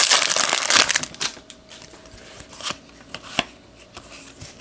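Foil wrapper of a baseball card pack crinkling loudly as it is torn and crumpled for about the first second, then a few soft clicks and rustles of cards being handled.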